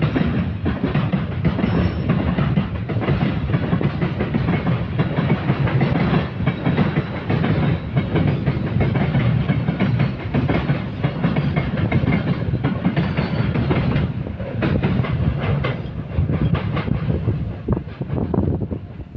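Freight train passing close by: a continuous rumble of wagons with the rapid clickety-clack of wheels over rail joints. The sound thins out near the end as the last wagons go by.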